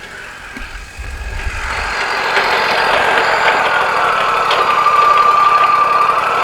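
Wood-Mizer LT40 hydraulic sawmill's engine and hydraulics working as the cant is turned over. A low thump comes about a second in, and the mill grows louder, with a steady whine from about four seconds in.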